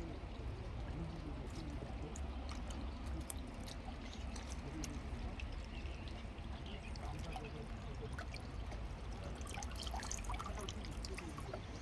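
Water trickling and pouring steadily, with scattered small clicks.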